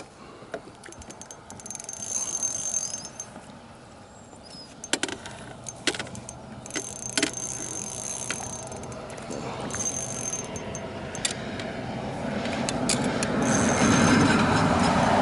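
Spinning reel cranked in short spells, four times, its gears giving a high whir each time. A few sharp clicks and knocks come in between, and a rushing noise swells near the end.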